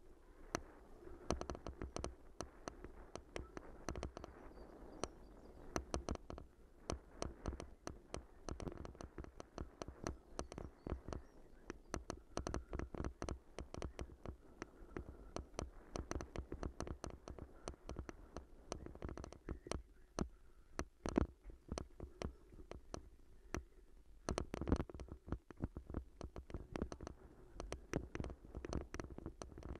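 Mountain bike rattling and jolting over a rough, muddy dirt track: a dense, irregular run of knocks and clicks over a low rumble.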